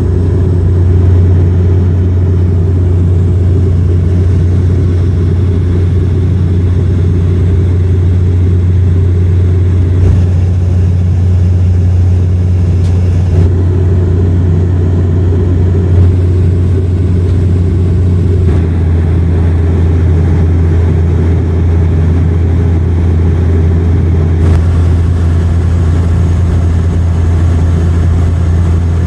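Aircraft engines heard from inside the passenger cabin: a loud, steady low rumble.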